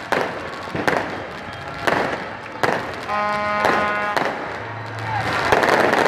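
Aerial fireworks bursting overhead, sharp bangs about once a second. About three seconds in, a steady horn-like note sounds for about a second, and near the end the noise of the crowd swells.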